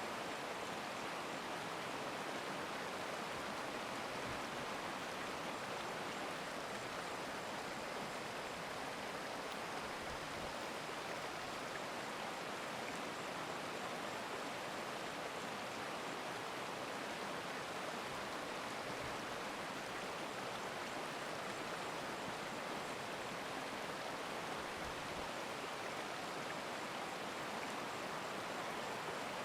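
Stream water running, a steady, even rushing with no breaks or changes.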